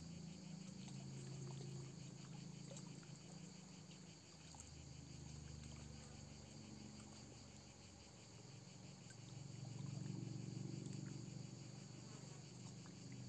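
Crickets chirping faintly in a fast, even pulse, over a low rumble that swells and fades and is loudest about ten seconds in.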